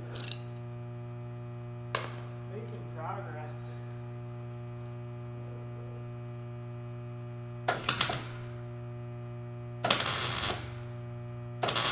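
Steady electrical hum, with a sharp ringing metallic clink about two seconds in. Three short bursts of MIG welding crackle follow in the second half, each lasting about half a second: the welder stitch-welding a thin sheet-metal patch a little at a time so the panel does not warp.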